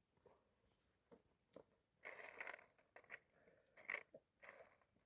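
Near silence broken by a few faint, short crunching sounds, irregularly spaced.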